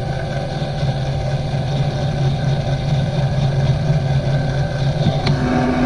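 Craftsman cordless power caulk gun running steadily, its electric motor and gearing humming as it drives the plunger to push out caulk. Near the end there is a click and the hum changes to a higher tone.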